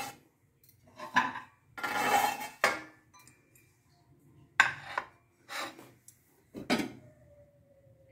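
China plate and bowl and a steel plate being handled and set down on a stone counter: about six separate knocks and clatters of crockery, with a faint ringing tone after the last one near the end.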